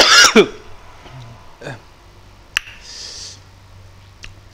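A short, loud vocal sound from a man as he takes a mouthful, then chewing with a few sharp mouth clicks and smacks and a breathy hiss about three seconds in.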